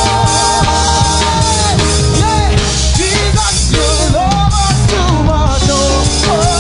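Live gospel praise-break music: a band with drum kit playing loudly under a lead singer. The singer holds one long note with vibrato at the start, then moves into short sliding vocal runs.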